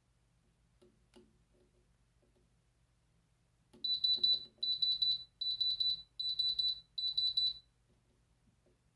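Handheld electronic diamond tester beeping as its probe touches the watch's set stones: five high-pitched beeps of about half a second each, each one a rapid stutter. This is the tester's signal for a diamond reading.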